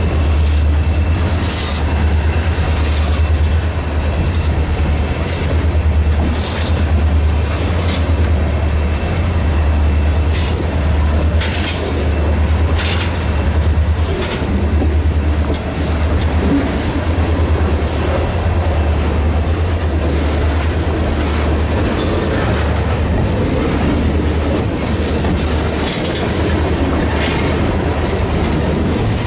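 Freight train tank cars rolling steadily past at close range. The low rumble of the wheels runs throughout, with irregular clacks as the wheels cross rail joints. A thin high wheel squeal fades out about a third of the way through.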